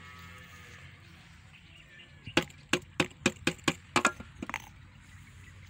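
Large aluminium cooking pot knocked against the rim of the biryani pot in a quick series of about eight sharp knocks with short ringing, starting about two seconds in: the last of the parboiled rice being shaken out for the dum layer.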